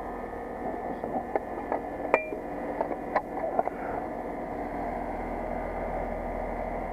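Carrier Infinity variable-speed heat pump outdoor unit running steadily, humming with several held tones. It is in pump-down mode with the liquid line closed, pumping the refrigerant into the outdoor unit. A few light clicks sound over it, the sharpest about two seconds in.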